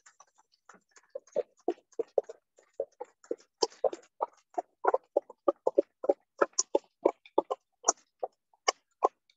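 A small group clapping: scattered, separate hand claps, a few a second, growing denser in the second half and stopping near the end.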